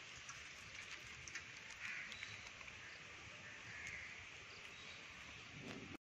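Faint outdoor ambience: a steady, soft hiss with a few faint higher sounds and small ticks.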